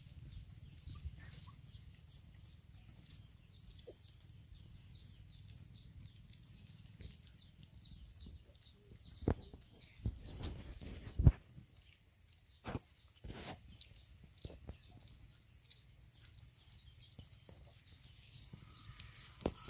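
Puppies feeding from a small metal bowl, with scattered sharp knocks and clinks in the middle stretch, the loudest about eleven seconds in. Underneath are a steady low rumble and, in the first half, a fast, high, repeating chirp.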